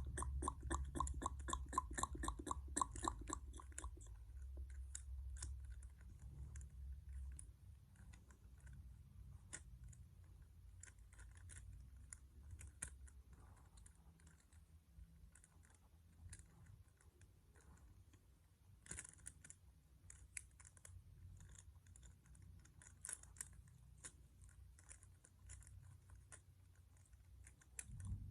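Faint, fast plastic clicking of a Rubik's-style puzzle cube being twisted by hand. The turns come in an even run of about five a second at the start, then more scattered, with short bursts of twists later on. A low steady hum lies beneath.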